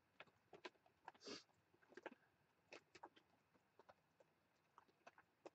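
Near silence: faint scattered clicks and ticks, with one short rustle a little over a second in.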